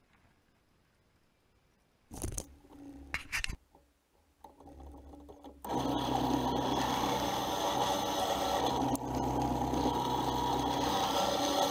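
Drill press running, its Forstner bit boring into a pine block: a steady motor hum with the noise of the bit cutting, starting about six seconds in after a few short knocks.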